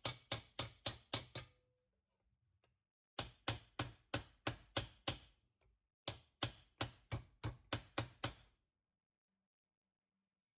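A hammer striking sheet steel in three quick runs of even blows, about four or five a second, with short pauses between, as a floor-pan patch panel is formed.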